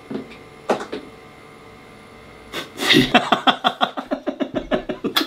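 A man laughing hard, a rapid run of 'ha-ha' pulses starting about three seconds in, after a few quieter seconds with a couple of brief sounds.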